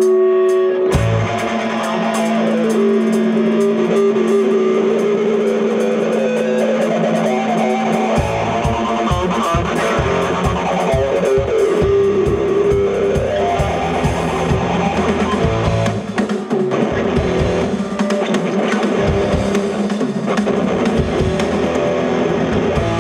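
Rock band playing live: the instrumental intro of a punk-metal song on electric guitars and bass guitar, opening on a long held note, with the drum kit coming in about eight seconds in.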